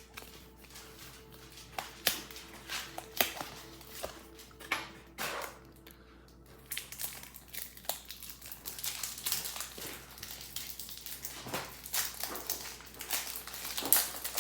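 Pokémon card pack packaging being handled: crinkling plastic and foil with scattered clicks and taps, busier in the second half.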